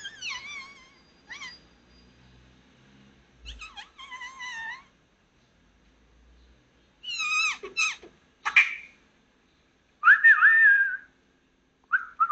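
Tabby-and-white kitten meowing repeatedly, high-pitched calls that bend up and down in pitch, coming in groups a few seconds apart.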